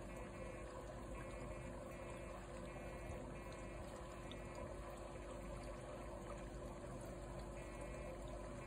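Aquarium water trickling steadily, with a steady low hum underneath, typical of a running tank filter.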